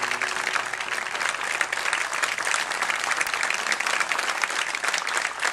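Studio audience applauding: dense, steady clapping. The last notes of the music die away right at the start.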